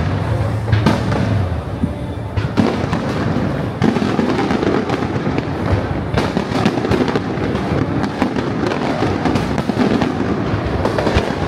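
Fireworks display: aerial shells going off in rapid succession, a dense run of bangs and crackles, with music playing underneath.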